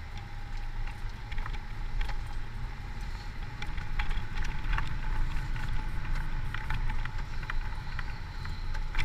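Low, steady rumble of a car on the move, heard from inside the cabin, with small scattered rattles and clicks.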